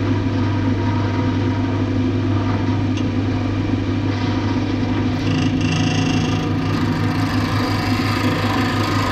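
Clarke CWL1000CF variable-speed wood lathe running steadily with a wood blank spinning, its motor humming at the raised speed. About five seconds in, a brief higher-pitched sound lasts just over a second.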